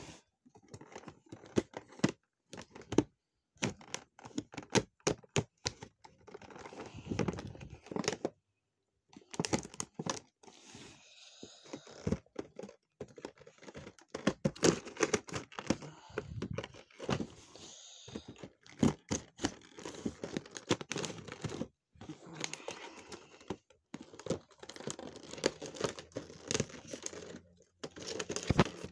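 Scissors cutting through a stiff clear plastic blister pack, with irregular sharp snips and clicks and the plastic crinkling and crackling as it is handled, broken by a few short pauses.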